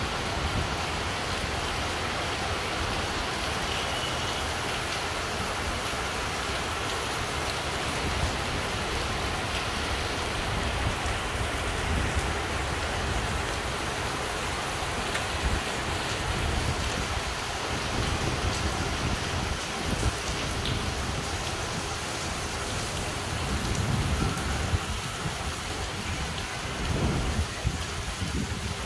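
Heavy rain falling in a steady hiss, with gusty wind rumbling low underneath that swells in stronger gusts near the end.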